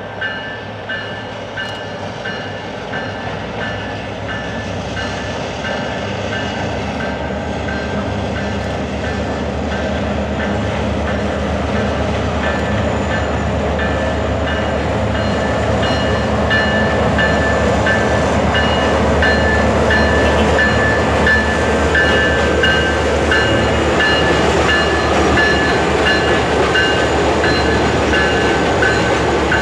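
Diesel freight train crossing a steel girder bridge: the locomotive runs and grows steadily louder as it comes across, then the loaded container wagons roll past with wheel clatter. High steady metallic tones break in and out with the passing wheels.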